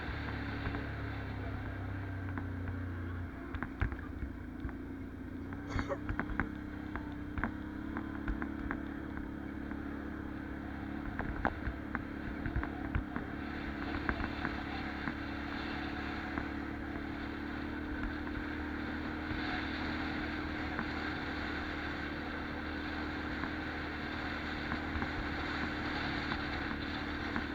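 Can-Am 570 ATV's V-twin engine running steadily under way, its note shifting about three seconds in. Scattered clicks and knocks from the machine jolting over the trail run through it.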